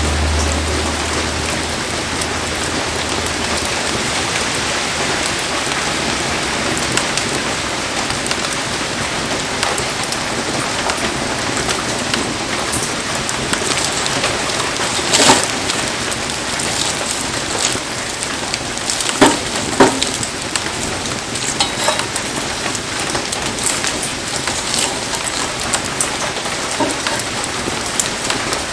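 Heavy rain falling steadily, a dense hiss of drops on the ground and surfaces around a campfire. A few sharp cracks stand out, the loudest about halfway through and two more close together a few seconds later.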